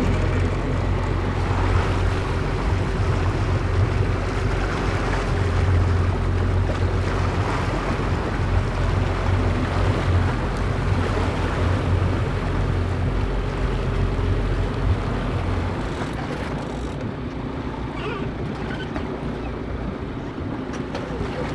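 Boat engine running with a steady low drone under wind and waves washing past the hull; the engine drone drops away about sixteen seconds in, leaving the wind and water.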